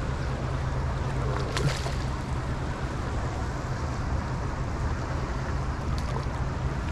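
Steady rushing of river water flowing over rocks, close to the microphone, with a brief faint sound about a second and a half in.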